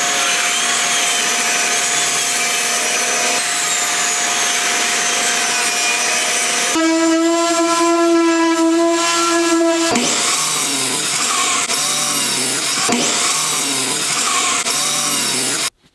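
Power woodworking tools running and cutting wood, changing abruptly every few seconds, with a steady motor whine for about three seconds in the middle. The sound cuts off suddenly near the end.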